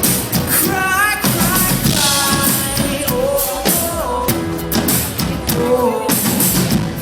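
Pop-rock song with a sung vocal over a drum kit.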